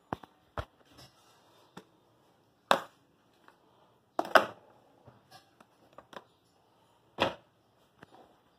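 Metal tongs knocking and scraping against a plastic basin and dog bowls as dog food is served out. About eight sharp, irregular knocks, the loudest a little past the middle.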